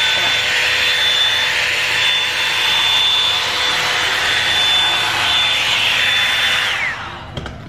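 Revlon One-Step hair dryer brush running: a steady rush of air with a high motor whine. Near the end it is switched off, and the whine slides down as the motor spins down.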